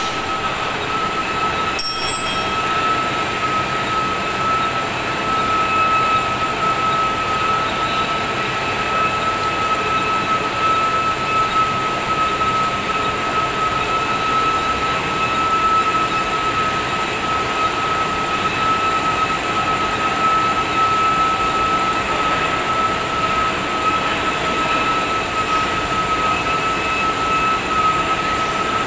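Three-layer cast stretch film machine running: a steady mechanical hiss and hum with a constant high-pitched whine, and a brief click about two seconds in.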